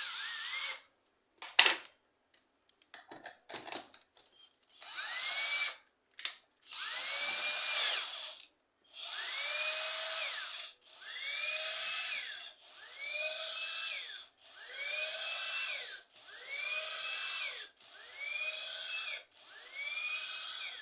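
Electric drill run in about nine short bursts, roughly one every two seconds, each spinning up and winding down, turning a seized fan motor's shaft to free its stuck, freshly oiled bushings. A few clicks and knocks of handling come before the bursts begin.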